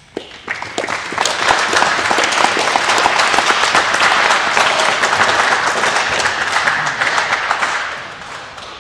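Audience applauding: many hands clapping that start just after the opening, build within about a second, hold steady, then fade out near the end.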